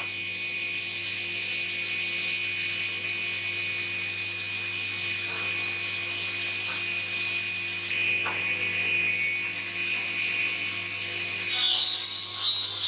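Stationary woodworking machine running steadily with a high whine and a low hum. Near the end a board is fed into the cutter, giving a louder rasping cut.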